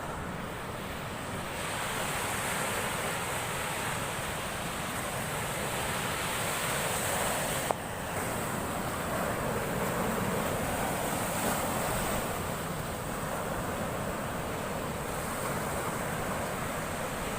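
Heavy storm surf breaking and washing up the shore, a continuous rushing that swells and eases several times, with wind buffeting the microphone. A single sharp click about eight seconds in.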